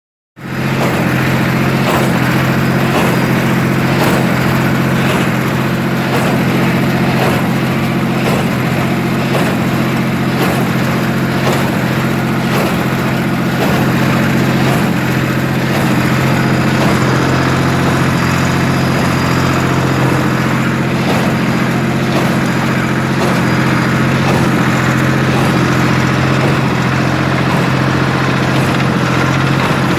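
SAME Argon 50 tractor's diesel engine running steadily while driving a New Holland 275 square baler, whose plunger knocks in a steady rhythm about once a second as hay is baled.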